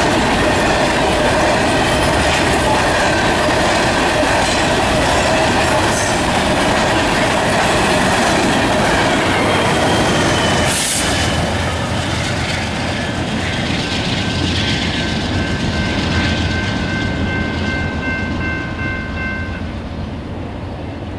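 Freight train of loaded covered hopper cars rolling past, its wheels clattering and squealing on the rails, then a diesel locomotive going by. After an abrupt change about 11 s in, a steadier low diesel rumble carries on with several thin high steady tones, fading slightly near the end.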